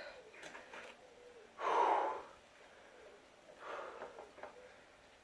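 A person breathing hard: a few heavy, noisy breaths, the loudest about two seconds in.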